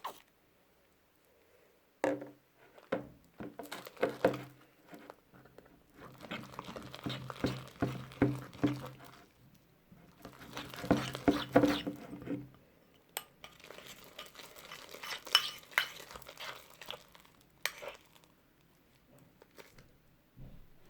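Slime being stirred in a bowl with a utensil: irregular clinking and scraping against the bowl with soft squishing, in two busy stretches separated by short pauses.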